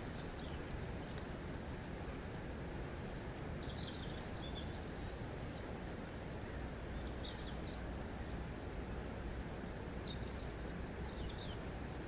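Birds chirping in short scattered calls and quick glides, in several clusters, over a steady rushing background noise.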